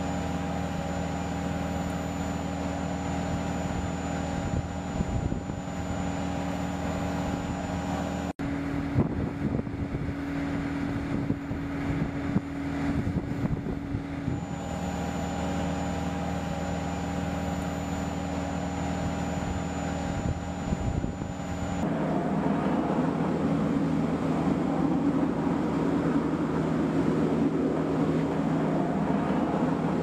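Steady engine drone on an air base apron, made up of several held humming tones. The sound changes abruptly about eight seconds in and again about twenty-two seconds in, and is noisier and slightly louder after the second change.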